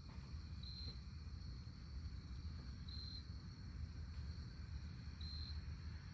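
Crickets or similar insects: a steady high trill with three short, louder chirps about two and a half seconds apart, over a low steady rumble.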